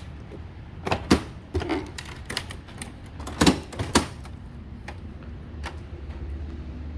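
A series of sharp clicks and knocks from parts of a Honda Goldwing GL1800 motorcycle being handled, the loudest about a second in and again around three and a half to four seconds in, over a steady low hum.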